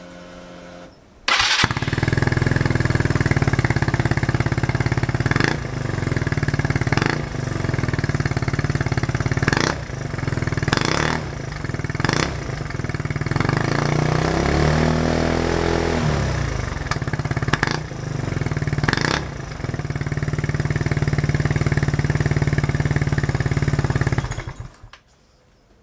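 Yamaha Cygnus X scooter's single-cylinder four-stroke engine, exhausting through an OVER Racing stainless and carbon aftermarket muffler: it starts about a second in and idles, with several short throttle blips. Around the middle it revs up and back down once, and it is switched off about a second before the end.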